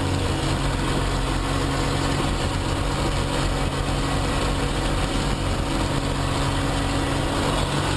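Aerobatic plane's piston engine and propeller running steadily in flight, heard from inside the cockpit, with a constant low hum under the rush of airflow.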